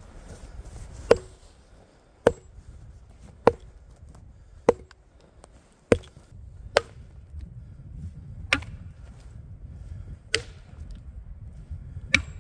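Sledgehammer blows breaking up a block of concrete around an embedded iron rod. There are nine heavy strikes, the first five about a second apart and the rest more widely spaced, some with a short ring after the hit.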